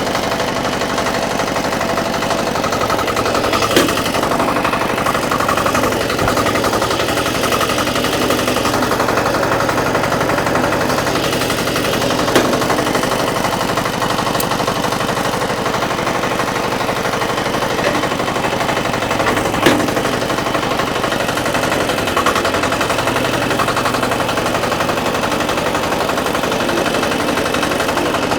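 Small engine of a four-wheel power weeder running steadily as the machine is driven, with a fast, even chugging. A few sharp clacks stand out about 4, 12 and 20 seconds in.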